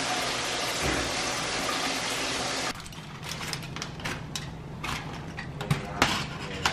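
Shower spray running as a steady hiss, cutting off abruptly about two and a half seconds in. Then light crinkling and clicking of an aluminium foil tray and its foil cover being handled, with a few sharper taps near the end.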